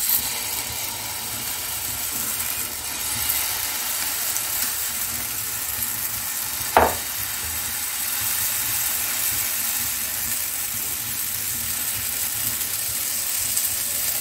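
Oats chilla batter sizzling steadily in hot ghee on a nonstick tawa while it is spread with a ladle, with a single sharp tap about seven seconds in.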